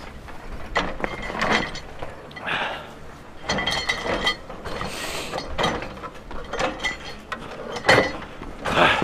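Excavator ripper tooth scraping and grinding into frozen ground: irregular scrapes and clanks of steel on hard frozen earth.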